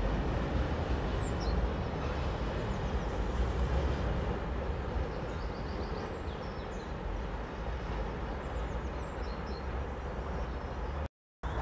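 Freight train of tank-container wagons rolling past on the rails, a steady wheel-on-rail rumble that eases slightly as it goes on. The sound cuts out briefly near the end.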